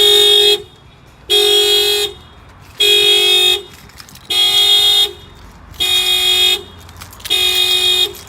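Honda Accord's factory alarm sounding the car horn in a steady pulse, six blasts about a second and a half apart. The alarm was set off by the add-on shock sensor picking up a smack on the tire.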